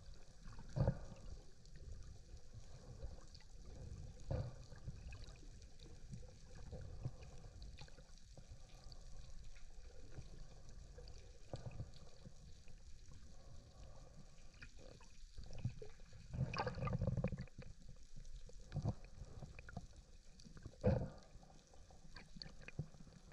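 Muffled underwater sound: a low rumble of moving water with scattered knocks and clicks, growing busier and louder for a moment about two-thirds of the way through.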